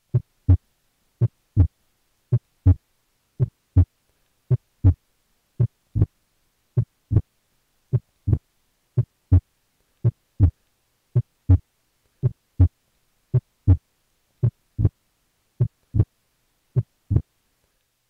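Human heart sounds through a stethoscope at the left upper sternal border: a steady lub-dub, about one beat a second, each beat a pair of short thuds (S1 then S2). S2 is louder than normal, and on inspiration its pulmonic component splits off and is the louder of the two, which is abnormal and typical of pulmonary hypertension.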